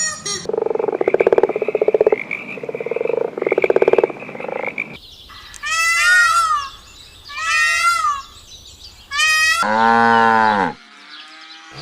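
A series of animal calls. First a rapid, pulsed croaking lasting about four seconds. Then three short, high-pitched calls that bend in pitch, and near the end one deep, drawn-out call that falls in pitch.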